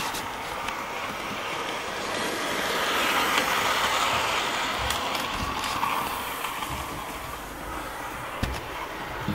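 Bachmann Class A1 'Tornado' model locomotive running along the track: a steady motor and wheel rumble that swells about three seconds in and then fades as it passes, with a few light clicks.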